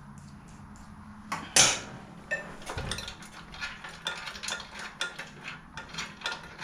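A sharp metal clank about a second and a half in, then rapid, uneven clicking of a hand socket ratchet working on a bolt.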